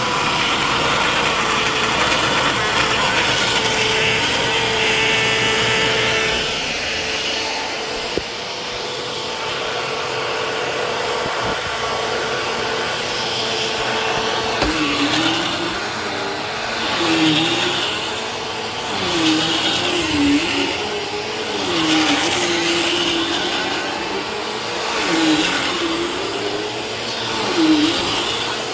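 Vacuum cleaner running continuously. About halfway through, its pitch starts to waver, dipping and rising every second or two with swells in loudness.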